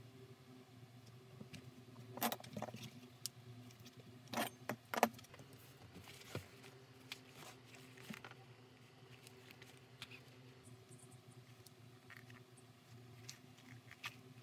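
Hand-tool and handling noise at a craft bench: a few sharp clicks and knocks, the loudest about two seconds in and again four to five seconds in, then lighter ticks and rustling as the bag panel is handled. A faint steady hum runs underneath.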